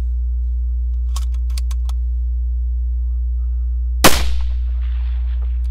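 One rifle shot from a muzzle-braked 6GT precision rifle about four seconds in, sharp and loud, with a short ringing tail. A few light clicks come about a second in, over a steady low hum.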